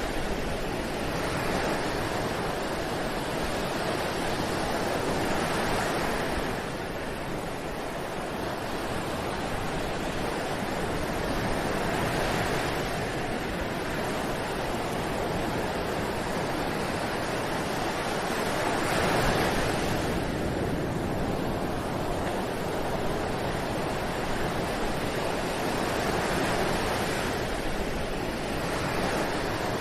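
Ocean surf breaking on a beach: a continuous wash of waves that swells and eases about every six or seven seconds.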